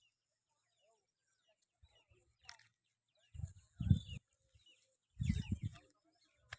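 Small birds chirping, with chickens clucking in two short bunches of calls, about three and a half and five seconds in, which are the loudest sounds.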